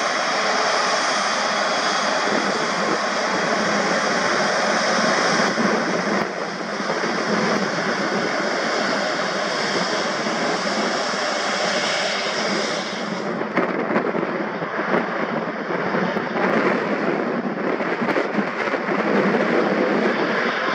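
Airbus A350-900's Rolls-Royce Trent XWB turbofan engines running at low taxi thrust: a steady jet rush with a high whine. The whine drops away about two-thirds of the way through, leaving a rougher rush.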